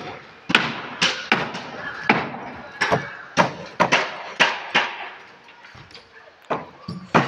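Irregular sharp knocks and clanks, about one every half second to a second, with a pause of about a second and a half shortly before the end.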